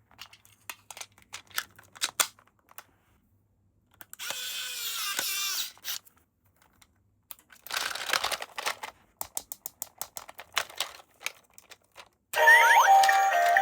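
Toy packaging being handled and torn open: scattered clicks and rustles, with two stretches of ripping about four and eight seconds in. Near the end a battery-powered toy switches on and plays a loud electronic tune.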